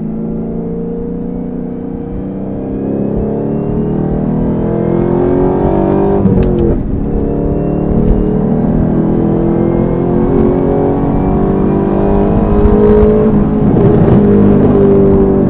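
Chevrolet Camaro ZL1's supercharged V8, with an aftermarket cat-back exhaust and cold air intake, pulling under acceleration: the engine note climbs steadily, breaks briefly about six seconds in, then climbs again.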